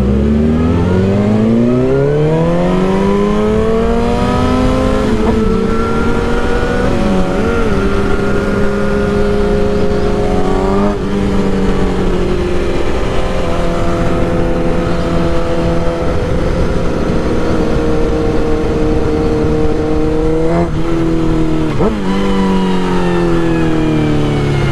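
A 2001 Suzuki GSX-R1000's inline-four engine heard from the rider's own bike. The revs rise as it pulls away, dip briefly about five and eleven seconds in, then hold steady at cruising speed, and fall near the end as the bike slows.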